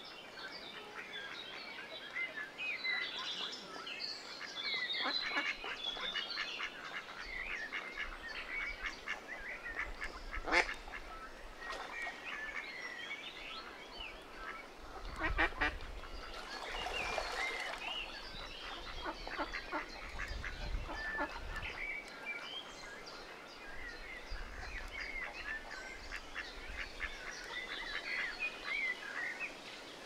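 Mallards quacking now and then, with other birds chirping throughout.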